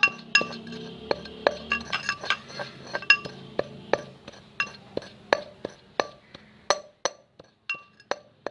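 Rock salt being pounded in a chattu (mortar) with a pestle: a run of sharp, ringing knocks, about two or three a second and uneven in strength.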